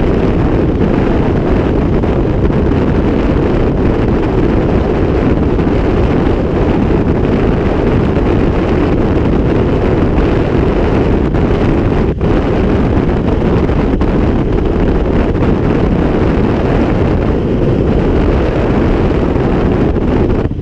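Loud, steady rushing of airflow buffeting the microphone during paraglider flight, with one brief dip about twelve seconds in.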